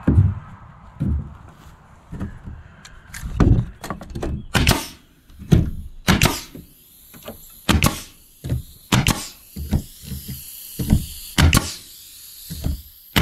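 Pneumatic nail gun firing nails into wooden boards: more than a dozen sharp shots at uneven spacing, some in quick succession.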